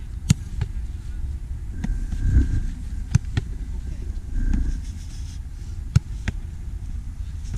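Football kicked on artificial turf and met by the goalkeeper a moment later: sharp thuds in pairs about a third of a second apart, three times, over a steady low rumble.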